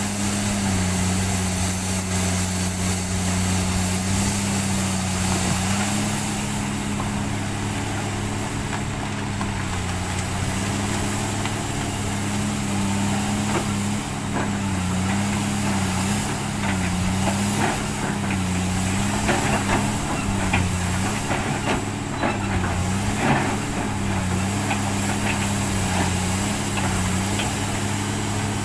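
Komatsu PC300 excavator's diesel engine running steadily, its pitch dipping briefly again and again as the hydraulics take load while digging and swinging. From about halfway in, scattered knocks and rattles of coal being dug and loaded.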